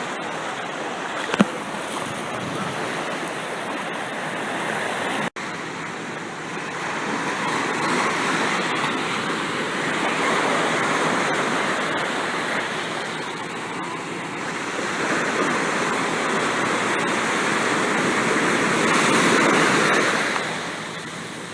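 Ocean surf breaking on a beach, the rush of the waves swelling and easing every few seconds, with one short knock about a second and a half in.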